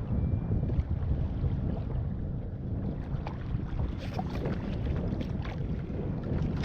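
Wind buffeting the microphone in a steady low rumble, with water lapping and small splashes against a kayak.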